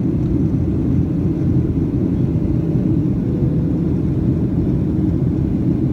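Steady low rumble of a Boeing 737 airliner's jet engines and airflow, heard inside the passenger cabin during the climb after takeoff.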